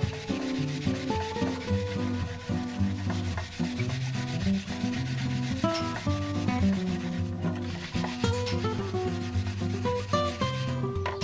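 Instrumental background music of plucked notes over a bass line, with a steady rubbing, scrubbing noise underneath.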